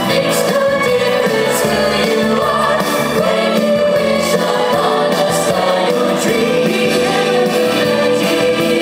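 Music with a choir singing, the voices holding long notes.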